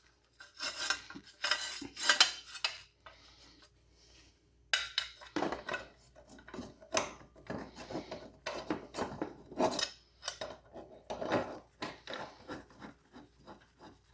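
Steel lawn mower blade and its centre bolt being fitted by hand to the blade adapter under the mower deck: irregular metal clinks and scrapes, with a short lull about three seconds in.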